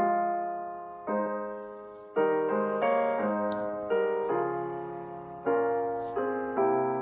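Slow, gentle piano music: soft chords struck every second or so and left to fade.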